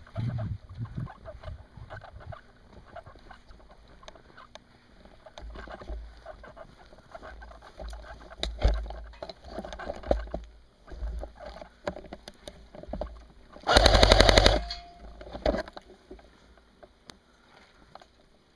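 A G&G Combat Machine airsoft electric rifle firing a short full-auto burst of about a second, about fourteen seconds in, then a brief second burst. Quieter knocks and rustling come before it.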